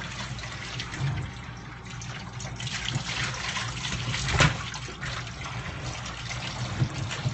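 Water running from a kitchen sink sprayer, splashing over a wet dog in a stainless steel sink, with a sharp knock about four and a half seconds in.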